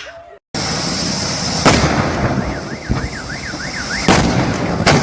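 Car alarm warbling over a steady hiss of noise, with sharp bangs about a second and a half in, about four seconds in and near the end.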